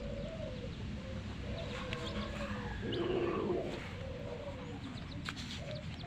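Hens making low, wavering clucks while chicks peep in short high chirps; a louder cluck comes a little after halfway.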